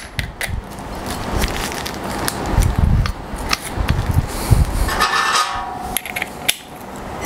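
Metallic clicks, clinks and handling knocks as a 36-grit flap disc is fitted and locked onto an angle grinder that is not running, with a short rattle about five seconds in.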